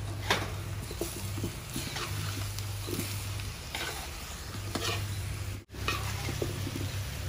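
A metal spatula stirring chunks of sweet potato in a metal pot: scattered scrapes and light knocks over a low steady hum.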